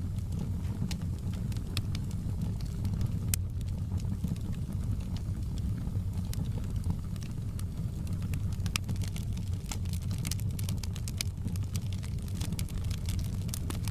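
Wood fire in a fireplace crackling, with frequent sharp pops and snaps over a steady low rumble. The pops come thicker in the second half.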